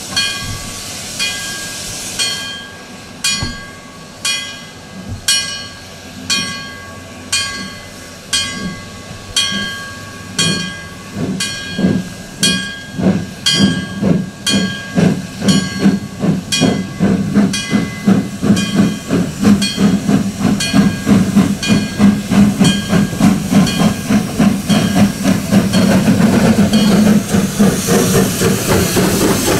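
Steam locomotive getting under way: its exhaust chuffs start at about one a second and quicken steadily to several a second, growing louder, over a steady hiss.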